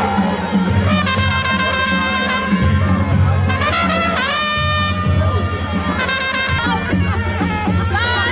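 Music: a melody of long held notes, each lasting one to two seconds, over a steady pulsing bass line.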